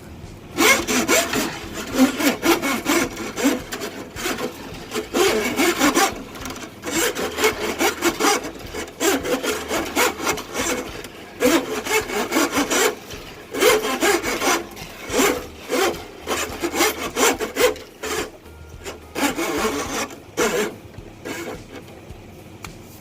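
A 5/16-inch steel drain-snake cable is pushed by hand into a Milwaukee Switch Pack drum and scrapes against the drum as it winds up inside. The scraping comes in short, repeated strokes, one for each push, and stops about 21 seconds in.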